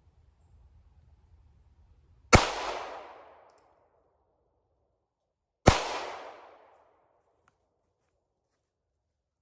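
Two shots from a Davis D-38 .38-calibre derringer, about three seconds apart, each a sharp crack followed by about a second of echo dying away.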